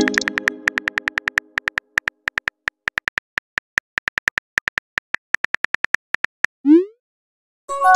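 Chat-app sound effects. A message-received chime fades at the start, then rapid keyboard typing clicks run for about six seconds. A short rising whoosh marks the message being sent, and another received-message chime comes near the end.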